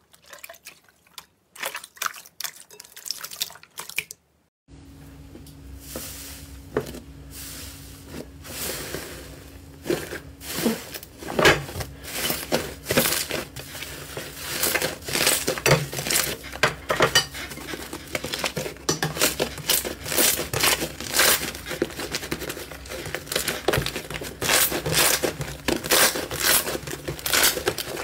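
Wet dripping and sticky clicks as a metal grid rack is pulled out of clear slime. After a short break, green slime is squeezed and kneaded by hand, giving many irregular crackling pops and crinkles over a faint steady hum.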